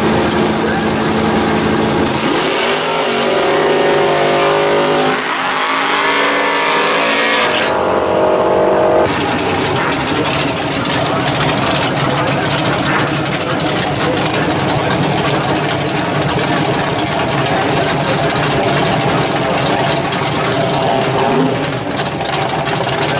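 Fox-body Ford Mustang drag cars' engines. A couple of seconds in, one car revs up and pulls away, its engine pitch climbing over several seconds. From about nine seconds in, another car's engine runs loud and steady at the line.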